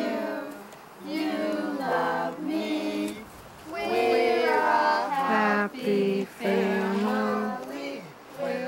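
A group of young children singing a song together, line by line with short breaks between phrases.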